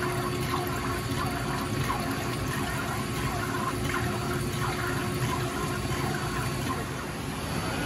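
Dielectric oil splashing and trickling in the tank of a Sodick sinker EDM, as the flushing nozzle sprays oil over the electrode and gas bubbles rise from the spark-eroded cut. The flow is steady, with a faint steady machine tone under it.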